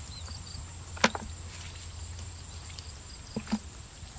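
Insects trilling on one steady high note, with a single sharp knock about a second in and two short low blips near the end.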